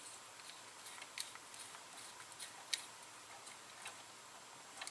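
Faint, irregular small clicks from a small screwdriver and plastic pluggable screw-terminal block as a wire is screwed into it, about half a dozen ticks spread over a few seconds.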